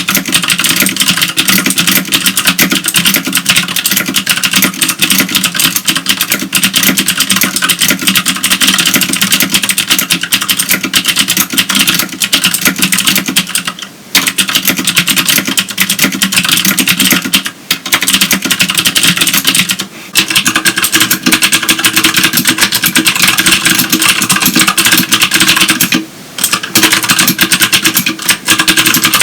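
Fast, continuous typing on a CM Storm QuickFire Stealth mechanical keyboard with clicky Cherry MX Green switches, broken by a few short pauses. After a brief pause about two-thirds of the way through, typing carries on on a Filco Majestouch Tenkeyless with clicky Cherry MX Blue switches.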